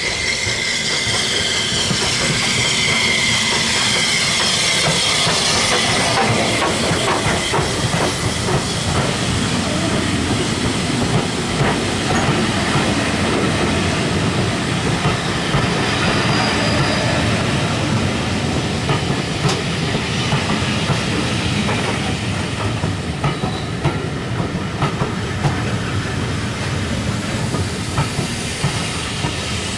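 Steam locomotive hissing as it comes through the station, then its train of coaches rolling past close by, the wheels clicking steadily over the rail joints and the rumble easing off near the end.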